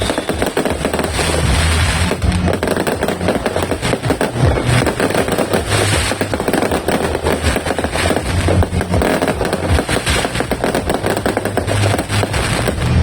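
A multi-shot fireworks cake firing a fast, unbroken barrage of bangs and crackles, with music playing underneath.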